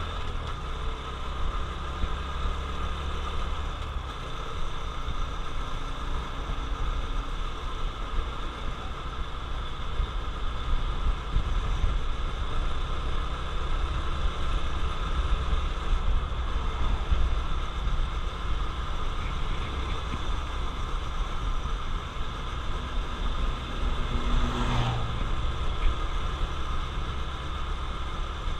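Honda CT125 Trail's air-cooled single-cylinder four-stroke engine running steadily as the bike is ridden. It holds a steady low note for the first few seconds, then blends into a denser rumble.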